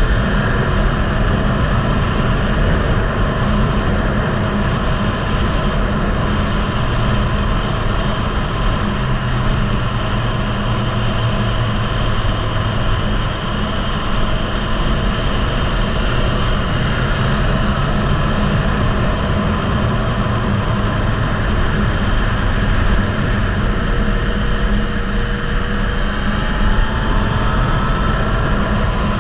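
Heavy wind rumble on the microphone over a Yamaha MT-09 motorcycle's three-cylinder engine running at speed.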